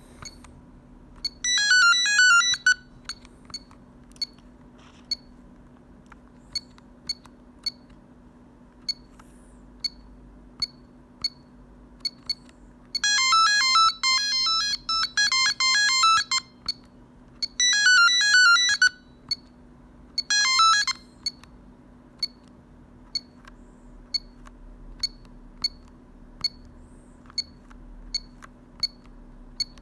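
Telecom Italia Tech New Master phone playing short electronic ringtone melodies through its speaker: a snippet of a tune about a second in, then several more in a row around the middle. Between the melodies, short high single beeps come about one or two a second.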